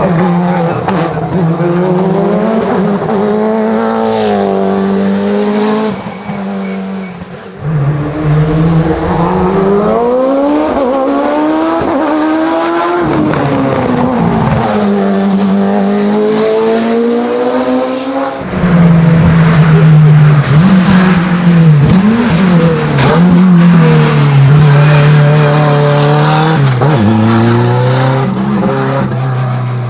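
Hill-climb race car engines at full throttle, the pitch climbing through each gear and dropping at the shifts and lifts for corners. The level dips briefly about six to eight seconds in. A louder, lower-pitched engine takes over about eighteen seconds in.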